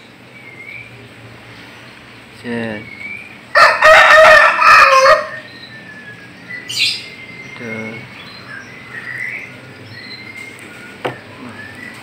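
A rooster crows once, loudly, about three and a half seconds in, for about a second and a half. Small songbirds chirp and whistle faintly around it.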